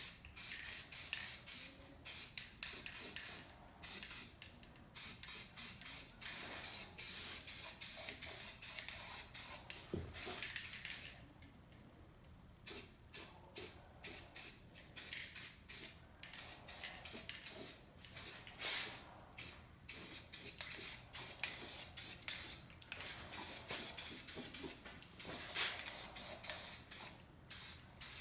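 Rust-Oleum aerosol spray paint can hissing in many short, on-and-off bursts as paint is sprayed, with a pause of about a second and a half near the middle.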